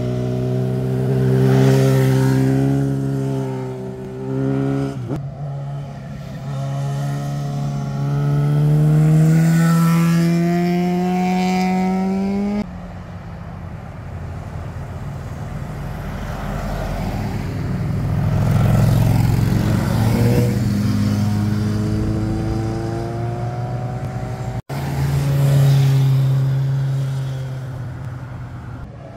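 Motorcycles passing close by one after another through a tight bend, each engine climbing in pitch as it accelerates out of the corner, the sound swelling and fading with each pass.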